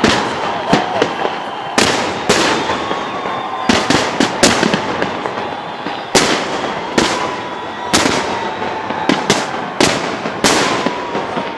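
Fireworks display: a quick, irregular series of loud bangs from bursting shells, several a second at times, each trailing off into crackle.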